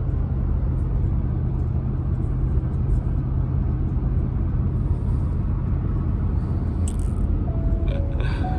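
Steady low road and engine rumble of a vehicle being driven, heard from inside the cabin. Music comes in near the end.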